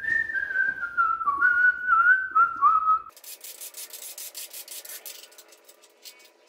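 A man whistling a short tune, one clear note stepping up and down, for about three seconds. It cuts off suddenly, and faint rapid clicking follows.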